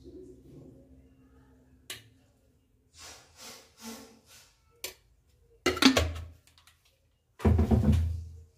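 Spoon and metal pot as ghee is dolloped onto layered biryani: a sharp click about two seconds in, a few soft short scraping sounds, then two louder thunks in the second half.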